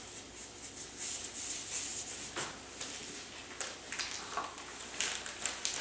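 Faint rustling of thin vinyl disposable gloves on hands, with a few short, sharper rustles later on.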